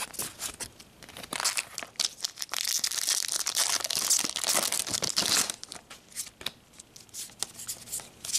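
Foil Pokémon booster pack wrapper crinkling and tearing open, a dense crackle in the middle few seconds, with sharp clicks of trading cards being handled before and after.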